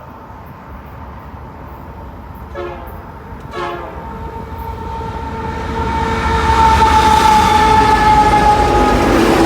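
Locomotive air horn on a loaded BNSF coal train, led by #5638, sounding one long chord that grows louder as the train approaches, over a rising rumble from the train. The horn's pitch drops near the end as the lead locomotive passes. About two and a half seconds in come two brief sharp sounds a second apart.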